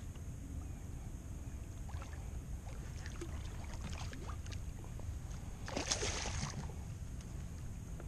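A hooked redfish (red drum) splashing at the surface beside a kayak, with small splashes and drips and one louder splash about six seconds in, over a steady low wind rumble on the microphone.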